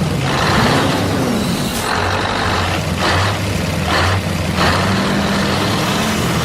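Steady low engine drone with several short bursts of hiss over it.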